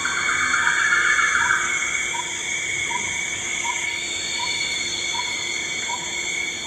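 Nature documentary soundtrack between lines of narration: steady high-pitched tones with a soft blip about every three-quarters of a second, and a brighter rasping layer in the first second and a half.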